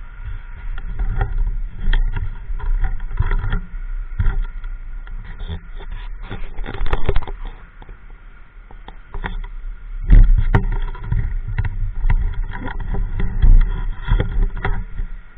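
Wind buffeting a helmet-mounted microphone on a moving motorbike: irregular gusts of low rumble that swell and ease, over the faint steady running of the bike.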